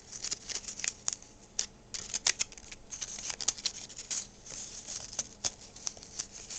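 Small headphone packaging being handled and opened by hand: an irregular run of quick, sharp crackles and clicks.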